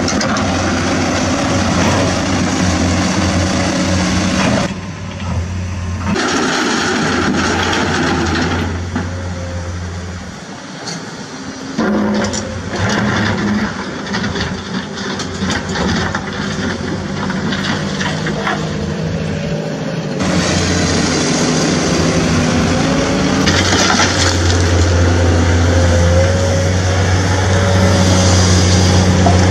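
Huina RC toy excavator at work, with a steady engine-like drone that drops away and comes back several times as the arm and bucket move. Scattered clicks and clatters of gravel and plastic parts come through in the middle.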